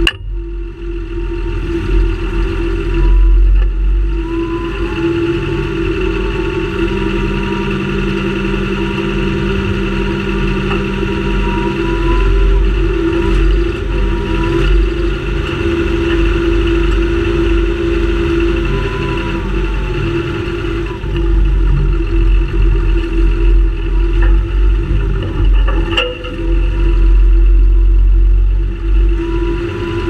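A John Deere 6930 Premium tractor's six-cylinder diesel engine runs steadily as the tractor drives along, heard close up. The drone carries a steady whine that wavers slightly in pitch, with a heavy low rumble that grows louder at times.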